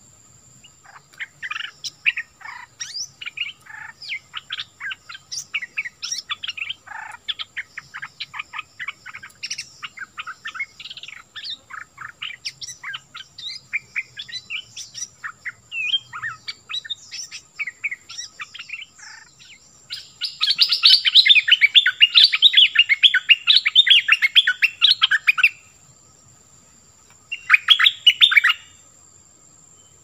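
Stripe-throated bulbul singing: a long run of quick, varied chattering notes, then about twenty seconds in a louder, rapid burst of song lasting about five seconds, and a shorter loud phrase near the end. A faint steady high whine runs under it throughout.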